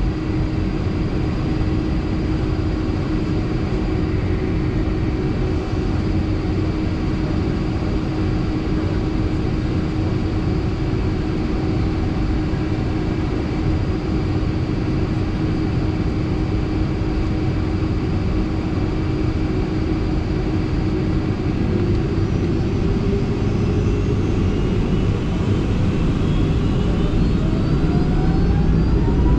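Boeing 757-300 jet engines running at a steady whine over a low rumble. About three-quarters of the way through they spool up, the whine rising steadily in pitch as takeoff thrust is set.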